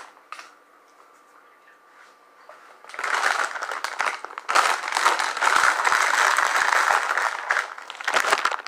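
Plastic chip bag crinkling as crushed chips are shaken out of it into a pot. It starts about three seconds in and goes on for about five seconds as a dense crackle.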